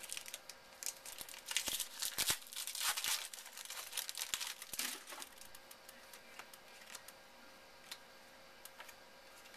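Wrapper of a 2011 Panini Rookies & Stars Longevity football card pack being torn open and crinkled: a dense run of crackling for about the first five seconds, then only scattered light clicks.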